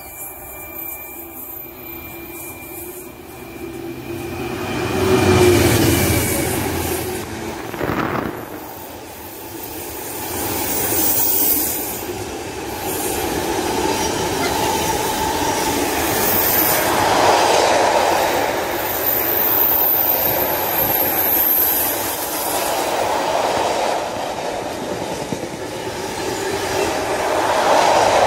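Container freight train passing through at speed: the locomotive goes by about five seconds in, then a long run of loaded container wagons follows, wheels clattering on the rails with brief high wheel squeal.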